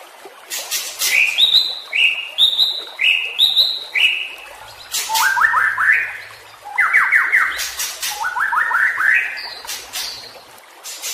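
White-rumped shama (murai batu) in agitated song. Four sharp cracks, each followed by a falling whistle, about a second apart, then three bursts of quick rising notes in the second half.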